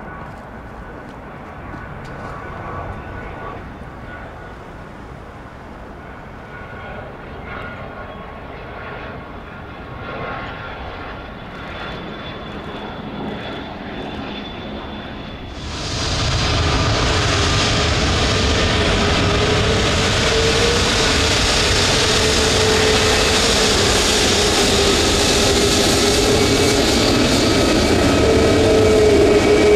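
Jet engines of a Learjet business jet on landing approach, heard from a distance: a fairly quiet whine with a few faint steady high tones. About halfway the sound switches abruptly to the much louder, steady running of an Airbus A321neo's turbofans taxiing close by, with a wavering mid-pitched hum over the jet noise.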